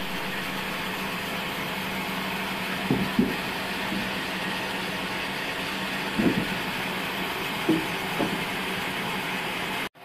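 Large vertical band saw running steadily with a constant hum as old pine timber is fed through it, with a few short knocks about 3, 6 and 8 seconds in.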